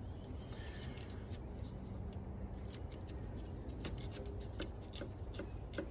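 Faint scattered small clicks and light handling noises of hands working engine-bay hose fittings and clips, over a steady low background.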